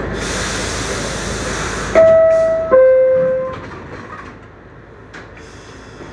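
R62A subway car's door-closing chime: a hiss of air, then two tones, the second lower than the first, about two seconds in. The car grows quieter after the chime.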